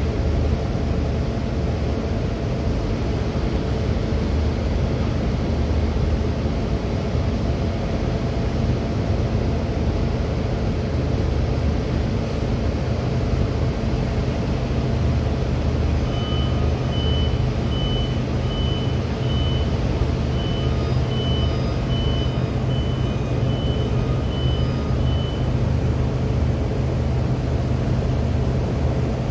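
Steady low drone of heavy machinery running. About halfway through, a high electronic warning beeper sounds repeatedly, one to two beeps a second, for about ten seconds, then stops.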